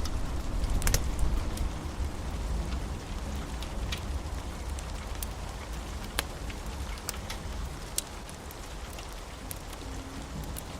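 Steady rain falling on a roof, with scattered sharp drip ticks over it and a low storm rumble that eases off over the first couple of seconds.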